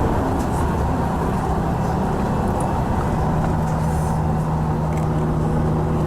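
Tour bus running, a steady engine and road rumble heard inside the cabin, with a low steady hum coming in about three seconds in.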